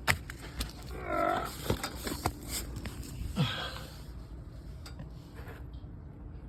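A man's short wordless vocal sounds, one about a second in and another near 3.5 s, among a few light clicks and knocks of handling.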